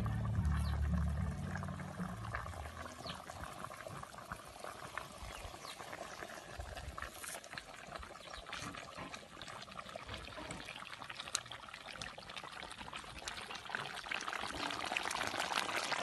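A large pot of water at a rolling boil over a wood fire, bubbling and hissing with a dense patter of small pops. It grows louder over the last couple of seconds.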